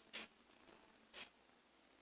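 Near silence: faint room tone with a soft tick about once a second.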